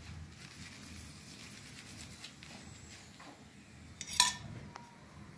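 A metal spoon tapping and scraping on a paratha and the iron tawa beneath it: a few light clicks, then a sharp metallic clink about four seconds in.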